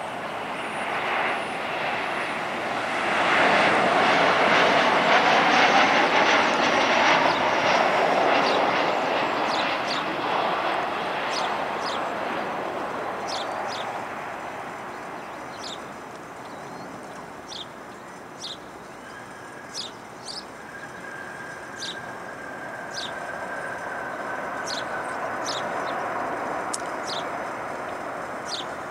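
Jet airliner engine noise that swells to its loudest a few seconds in, then slowly fades to a steady distant rumble. Short high ticks come and go over the fading noise.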